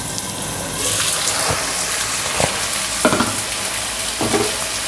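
Chopped tomatoes and onions sizzling in hot oil in a pan on high heat, louder from about a second in, with a few short knocks of utensil against pan.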